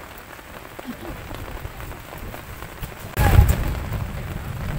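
Steady rain falling on a campsite, with a brief loud low rumble about three seconds in.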